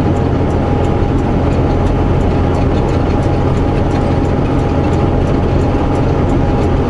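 Semi-truck's diesel engine running steadily, heard from inside the cab: a constant low rumble with a steady hum over it and a faint ticking about three times a second.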